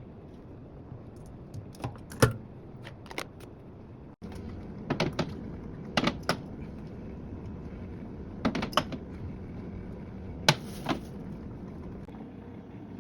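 Sharp clicks and knocks of items being handled and set down, in clusters of two or three over several seconds, with a brief dropout about four seconds in.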